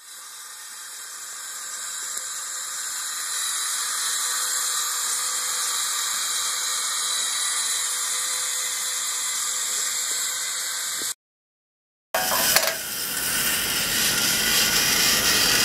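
Small electric drive motors of a four-wheeled hobby robot running, a steady high-pitched whir. It cuts off for about a second after the middle, then starts again with a click and runs on.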